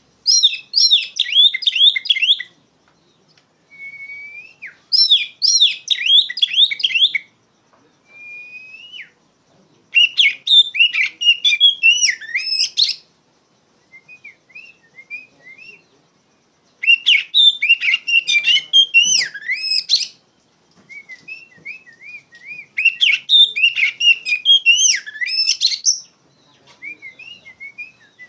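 Oriental magpie-robin singing loudly, in about five bouts of fast, varied whistled phrases two to three seconds long. Several bouts open with a short rising whistle, and there are short pauses in between, some filled with quieter runs of short notes.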